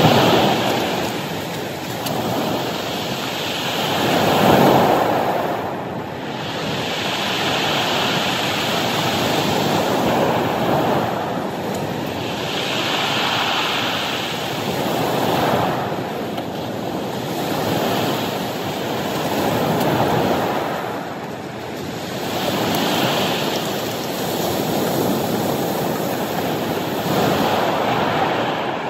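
Ocean surf breaking and washing up a cobble beach, the noise of the waves swelling and falling back every few seconds.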